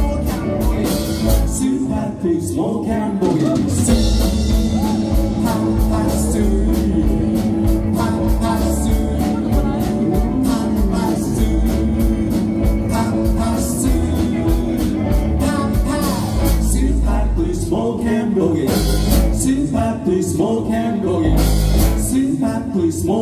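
Live band playing amplified through a PA: electric guitars, bass, keyboard and drum kit, with a lead vocal.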